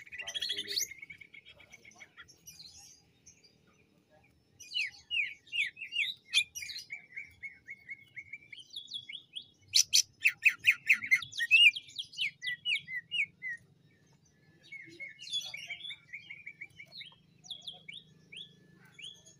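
Caged male greater green leafbird (cucak ijo) singing in phrases of fast, sharp, repeated notes, with short pauses between phrases; the loudest run comes about halfway through.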